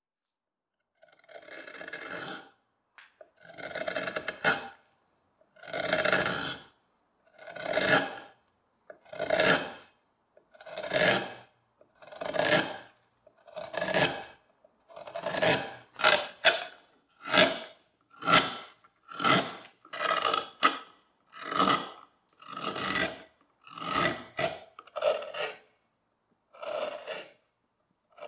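A narrow 3 mm carving gouge cutting walnut by hand: about twenty separate scraping strokes, each one a gouge pushed along the grain. The strokes start about a second in and come faster and shorter in the second half, with silence between them.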